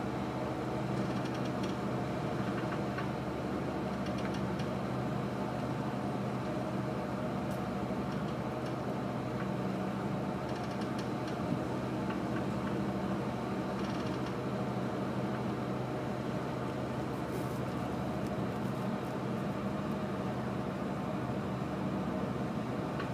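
Steady hum of an engine running at idle, even and unchanging, with a few faint ticks now and then.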